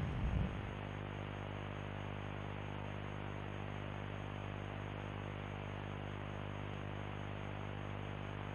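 A steady low buzzing hum with a hiss over it. The tail of a loud hit fades out in the first second.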